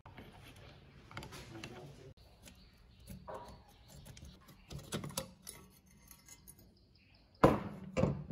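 Small metal clicks and scrapes as a rusty hurricane lamp's wire guard cage and metal base are handled, ending in two sharp metal clanks about half a second apart.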